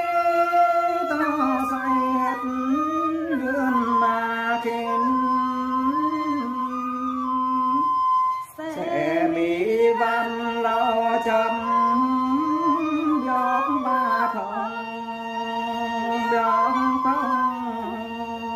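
A man and a woman singing a Tày-Nùng sli song together in long, held, wavering notes. The song breaks off briefly about halfway through and then goes on.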